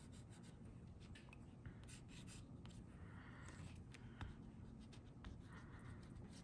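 Faint pencil strokes scratching on paper in short bursts every second or two, with a few light clicks and taps of the hand and pencil.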